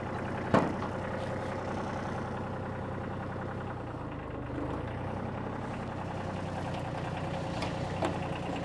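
New Holland tractor's diesel engine running steadily at low revs, with a steady whine over it. A sharp metallic clunk comes about half a second in, and a smaller one near the end.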